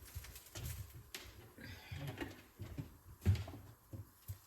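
Kitchen handling noise: scattered light knocks and clatter of a pan and utensils being moved around at the counter and sink, the loudest knock about three seconds in.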